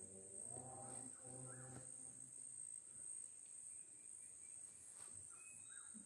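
Crickets keeping up a faint, steady high-pitched trill. Faint distant choir singing carries over the first couple of seconds.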